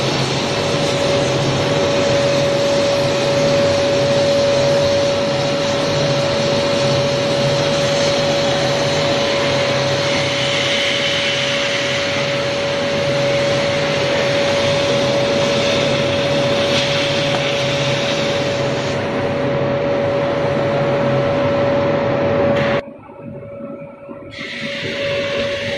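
Portable CNC gantry cutting machine's torch cutting through thick steel plate: a steady loud hiss with a constant whine. It stops abruptly about 23 seconds in, and a quieter hiss follows.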